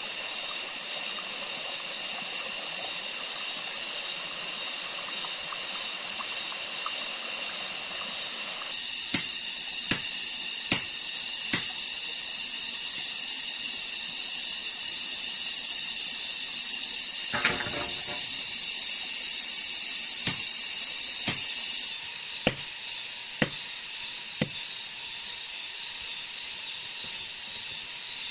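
A steady, high-pitched rainforest insect chorus drones throughout. Over it come a few sharp knocks about a second apart, in two runs, and a short rattle in the middle.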